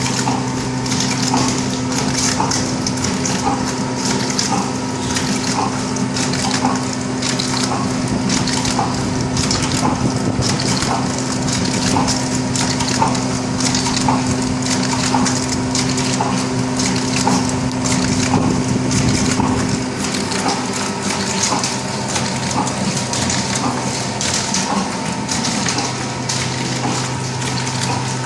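R&D-model blister packing machine running: a steady mechanical hum under a regular rhythm of short clicks from its repeating stroke, with a hiss above. One of the hum's tones drops out about two-thirds of the way through.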